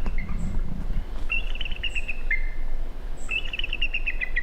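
Bald eagle calling: two runs of rapid, high chittering notes, each dropping to a lower note at the end.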